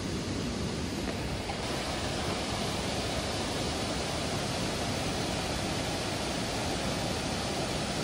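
Steady rushing roar of a waterfall, an even wash of water noise; the hiss brightens about one and a half seconds in.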